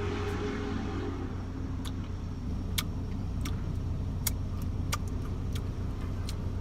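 Car engine idling, a steady low hum heard from inside the cabin, with about seven light clicks and taps scattered through it.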